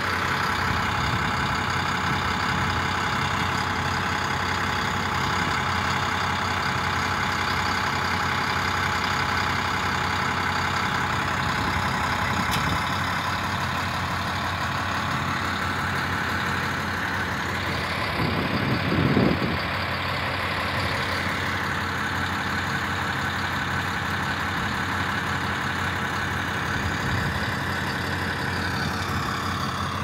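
Heavy machinery's engine running steadily, with a slight pitch sway and a brief low rumble a little past halfway.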